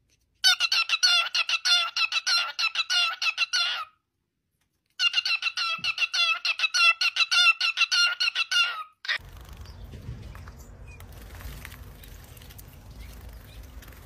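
Cockatiel calling in a rapid string of short, repeated chirps, several a second, in two runs of about four seconds each with a brief pause between. About nine seconds in the calls stop and only a faint even hiss of noise is left.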